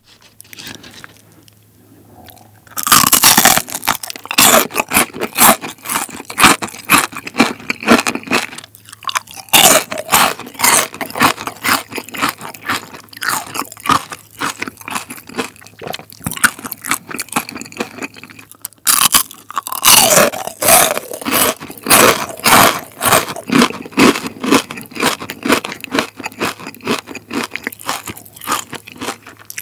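Close-miked eating of crispy fried chicken skin: loud crunching bites and fast crunchy chewing that start about three seconds in. They break off briefly about two-thirds through, then start again with a fresh bite.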